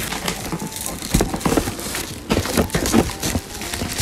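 Plastic wrap and cardboard crinkling and rustling as a wrapped cardboard box is opened by hand, with irregular small knocks and scrapes.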